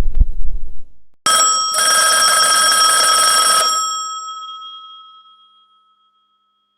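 Rotary telephone bell ringing: one ring of about two and a half seconds with a brief break just after it starts, then ringing out and fading. Before it, a low noisy rumble cuts off about a second in.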